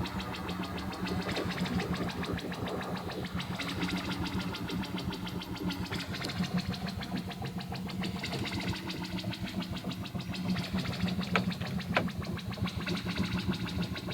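Hardware synthesizers playing a buzzing noise drone: a steady low hum under a dense, rapidly pulsing rasp, with a couple of short sharp blips near the end.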